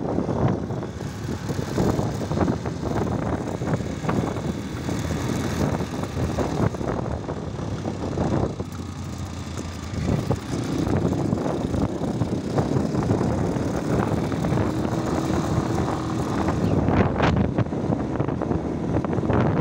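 Wind buffeting the microphone: a loud, uneven rumble. A faint steady hum joins about halfway through.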